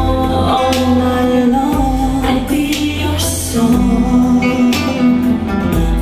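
A song with singing, guitar and heavy bass, played loud through a home-built MDF speaker cabinet with a Ciare PW 256 woofer and a Sica 9470 driver and heard in the room.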